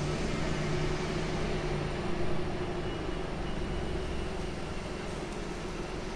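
DAF XF 480 lorry's PACCAR MX-13 straight-six diesel running steadily as the truck is driven slowly, a low hum that eases slightly about two seconds in.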